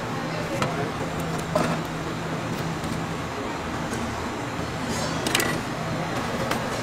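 Steady low hum and background noise from a street food stall, with a few sharp clicks and clacks from handling the food and utensils, the loudest about a second and a half in.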